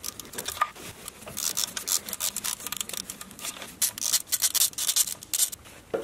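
Socket ratchet clicking rapidly in runs, a rasping sound, as a 10 mm bolt of the timing chain guide is backed out.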